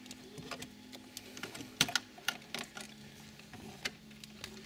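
Scattered light clicks and taps of hands working on a car's dashboard, fitting instrument-cluster bulbs and wiring, over a faint steady hum. The sharpest click comes about two seconds in.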